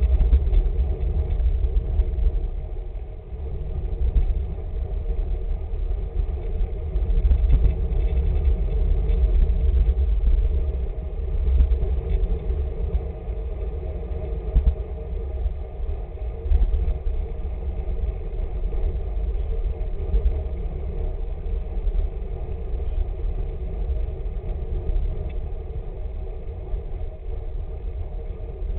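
Wind buffeting the microphone of a camera worn by a road cyclist riding in a group, a heavy low rumble over a steady hum of tyres on the road. The rumble eases off about halfway through.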